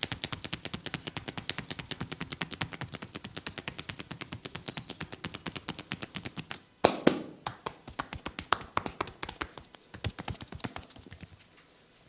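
Hands tapping quickly and rhythmically on a head in an Indian barber's head massage, a fast run of light clicks about seven a second. About two thirds of the way through comes a louder slap, then slower, uneven taps that stop shortly before the end.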